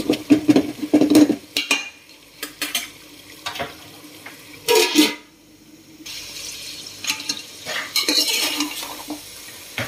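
Metal spoon stirring and scraping chicken pieces around a metal pot, with clinks against the pot's side in several short bursts, over a light sizzle of the chicken frying in oil and onions.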